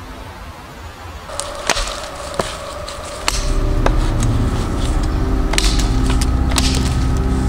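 Work Tuff Gear Wilson, a large camp knife, cutting down the edge of a wooden board held upright on a stump: a run of irregular sharp woody snicks as the blade bites and chips come off. Background music runs underneath and gets louder about three seconds in.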